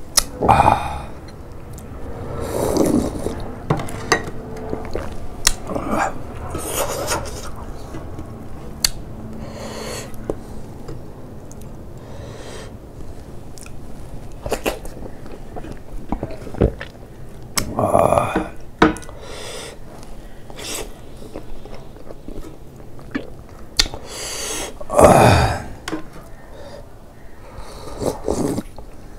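Close-up eating sounds of a man eating buckwheat dhido and pork trotters by hand: chewing and wet smacking, with many sharp mouth clicks and a few louder breathy mouth sounds. Near the end he drinks soup from a glass bowl.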